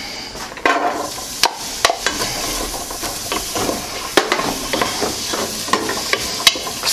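Chopped onion, carrot and celery landing in hot oil in a stainless steel stockpot and sizzling, the start of sweating the vegetables. A steady hiss sets in about a second in, with scattered sharp clicks over it.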